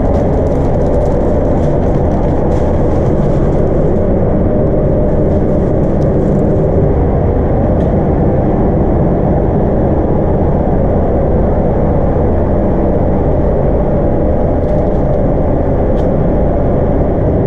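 Paint spray booth running: a loud, steady mechanical drone with a low hum that does not change.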